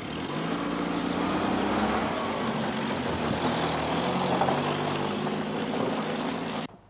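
Van engine running as the van drives off, its note rising and dropping back a few times. The sound cuts off suddenly near the end.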